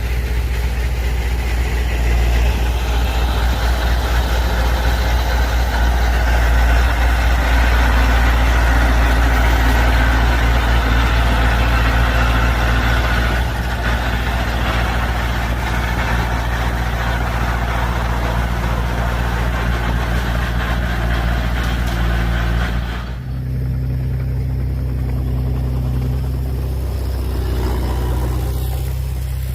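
Heavy diesel engine of earthmoving machinery running hard, loud and steady. About 23 seconds in it eases off abruptly and settles to a lower, quieter-toned running.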